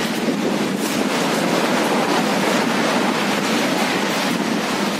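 Sea surf washing against the rocks of a coastal sea cave: a steady rushing hiss that swells a little in the middle.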